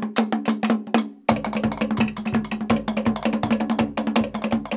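Fast Polynesian drumming: rapid, even strikes on wooden slit drums and skin drums over a steady low tone, with a brief break about a second in before the rhythm picks up again.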